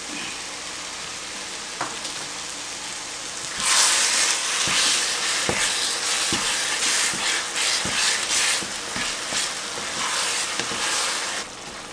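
Rhubarb achaar cooking in a frying pan with a steady sizzle. From about four seconds in, a wooden spatula stirs it hard, scraping through the thick mixture and knocking against the pan.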